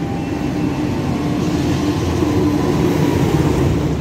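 Passenger train hauled by a CC206 diesel-electric locomotive passing through a station at speed: a steady rumble of engine and wheels on rail that swells to its loudest about three seconds in.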